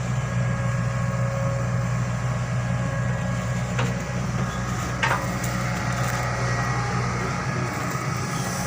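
Excavator's diesel engine running steadily, with two sharp knocks about four and five seconds in.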